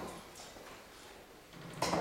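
A steel-tip dart striking the bristle dartboard with one sharp thud near the end, the third dart of the throw.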